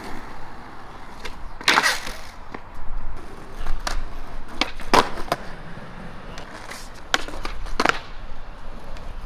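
Skateboards on concrete: wheels rolling, with a scattering of sharp clacks from boards popping and landing, the loudest about halfway through.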